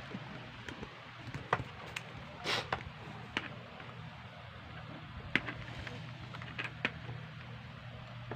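Handling of a spring-type M1911A1 airsoft pistol and its pellets: a few scattered light clicks and knocks, with a short rasp about two and a half seconds in, over a faint steady low hum.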